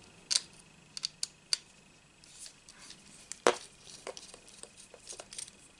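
Scattered sharp clicks and light taps of a precision screwdriver and small plastic parts as a tiny screw is worked out of an Xbox Elite controller's housing; the loudest click comes about three and a half seconds in.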